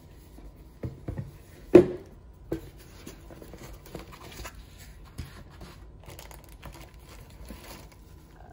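Unpacking a rigid cardboard reel box: a few knocks as the lid comes off and is set down, the loudest just under two seconds in, then foam padding and plastic wrapping rustling and crinkling as the contents are lifted out.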